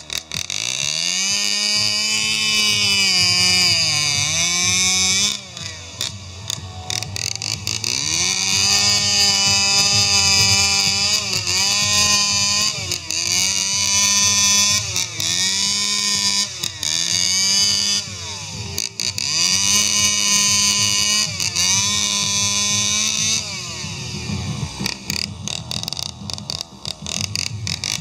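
Husqvarna two-stroke chainsaw, fitted with a stainless expansion-chamber muffler, carving into a log: it revs up just after the start and runs at high throttle, its pitch sagging briefly again and again as the chain bites into the wood and picking up as it clears. The throttle drops back about 5 s in, and the engine runs lower and rougher near the end.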